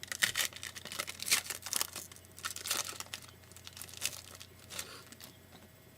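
Foil trading-card pack wrapper crinkling and tearing as it is ripped open and handled: a dense, irregular crackle that stops about five seconds in.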